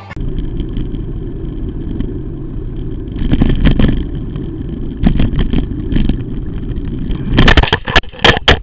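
A vehicle driving, recorded on a dashcam: a steady low rumble of engine and road noise, louder in surges about three and five seconds in. Near the end comes a burst of loud, sharp crackling knocks.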